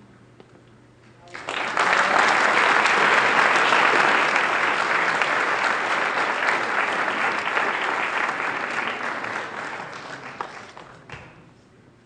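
Audience applauding at the end of a talk, starting about a second and a half in, holding strong for several seconds, then dying away near the end.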